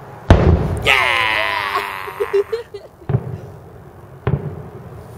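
Aerial firework shells bursting: one loud boom about a third of a second in, the loudest sound, then two softer booms about three and four seconds in.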